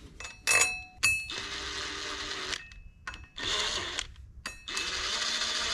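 Two metal clinks of flywheel bolts being handled, then a cordless power tool whirring in three short runs, about a second each, as the flywheel bolts are run in.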